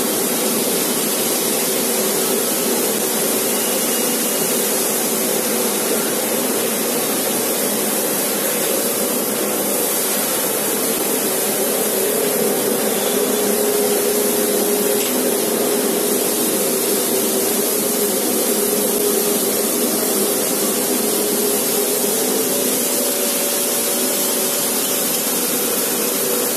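Steady, loud hiss of a fiber laser cutting machine running while it cuts carbon steel sheet, with a faint steady hum underneath.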